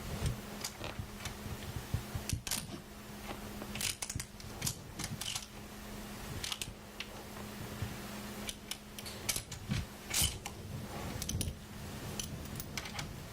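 Irregular metallic clicks and clinks of hand work on a motorcycle front end: the fork tubes being slid back up through the triple trees and the pinch bolts snugged with an Allen wrench. A steady low hum runs underneath.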